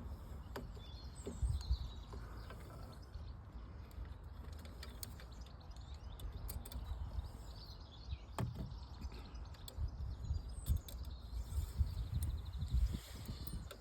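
Quiet outdoor background: faint birds chirping over a low rumble, with a few sharp clicks scattered through it.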